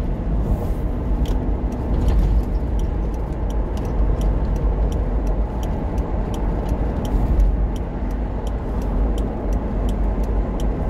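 Car interior noise while driving: a steady low rumble of road and engine. Through most of it there is a light, regular ticking about three times a second.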